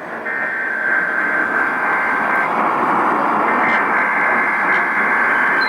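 Emergency Alert System SAME header data bursts received over a radio with static: two buzzy digital bursts about two seconds long, a second apart, over a steady hiss.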